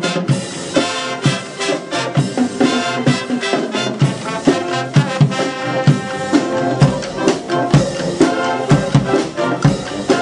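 Youth brass marching band playing while marching: trumpets, trombones and sousaphones carry the tune over a steady beat of snare and bass drums.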